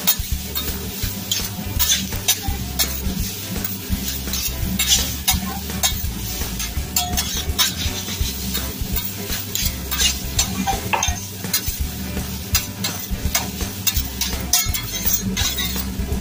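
Fried rice sizzling on a steel hibachi griddle while a metal spatula and fork stir and chop it, with frequent irregular clicks and scrapes of metal on the steel surface.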